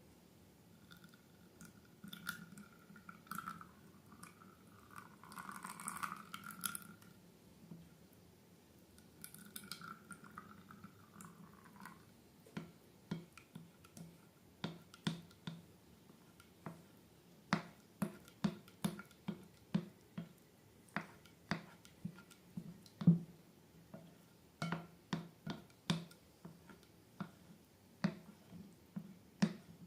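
Slime being worked by hand: a soft pouring, squishing sound for the first dozen seconds, then a long run of short sticky clicks and pops, about one or two a second.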